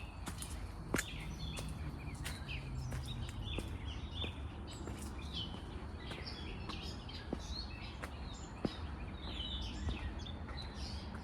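Small birds chirping and calling over and over, many short notes, above a steady low background rumble, with a few sharp clicks.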